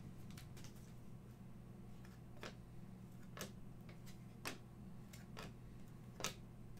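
Trading cards being flipped one at a time off a freshly opened pack, each card snapping or clicking as it is slid off the stack: about five sharp clicks, roughly one a second, over a faint steady hum.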